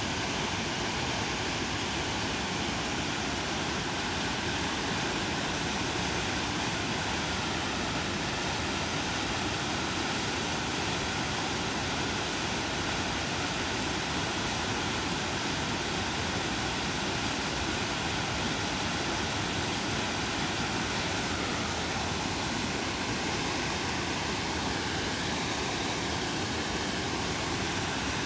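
Whitewater of a creek cascade, rushing steadily with an even, unbroken noise.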